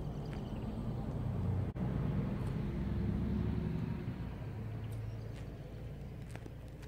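A passing motor vehicle rumbling: it builds to a peak about three seconds in and then fades away.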